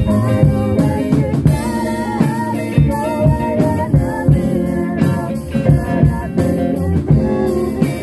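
Live rock band playing together: electric guitar, a drum kit keeping a steady beat, and a woman singing a melody into a microphone.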